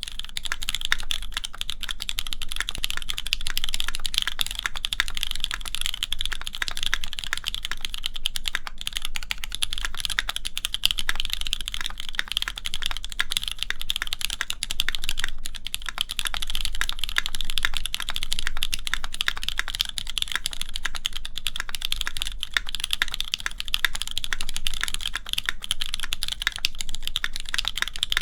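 Continuous fast typing on a Keycult No. 2 mechanical keyboard with lubed, linear Cherry MX Black switches and GMK keycaps on an aluminium plate: a steady stream of key clacks that begins right at the start.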